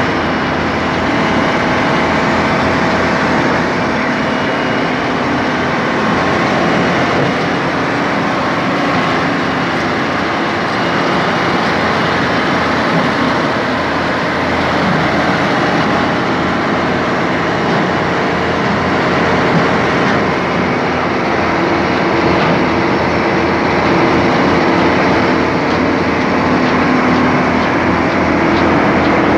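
Salem 1600 coal auger drilling machine running steadily under load, its engine driving a 36-inch cutting head into the coal seam while the turning auger carries broken coal out onto the pile.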